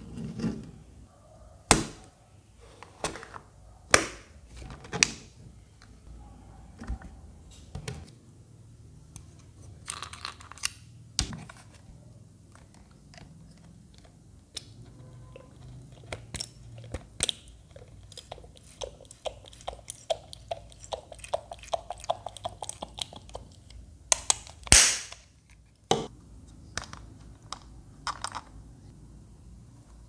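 Scattered sharp plastic clicks and knocks as a small handheld misting fan is handled, opened and its water tank filled from a dropper bottle, with a louder burst about three quarters of the way through.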